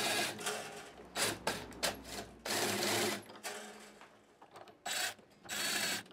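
Cordless drill with a string-winder bit whirring in several short bursts, winding the acoustic guitar's strings slack at the tuning posts.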